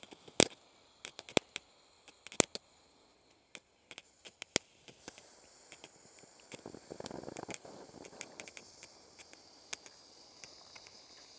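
Toy-truck novelty firework burning: a scatter of sharp pops and cracks over the first few seconds, then a steady hiss as it shoots out a spray of red fire and sparks, fullest around seven seconds in.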